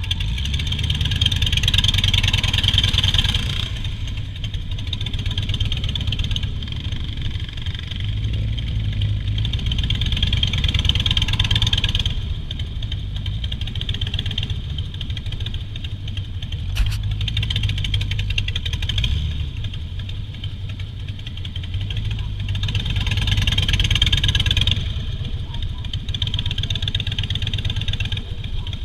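Harley-Davidson Softail Standard's V-twin engine running on the move, swelling louder and easing off several times as the throttle is opened and closed.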